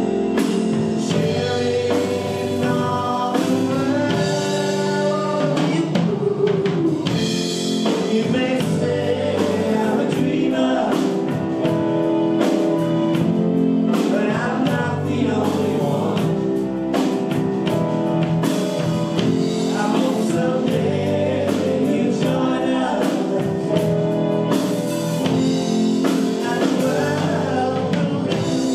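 Live band playing a song with singing: electric guitars, bass guitar, keyboard and drums.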